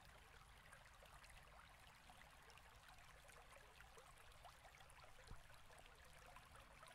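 Near silence, with one faint click about five seconds in.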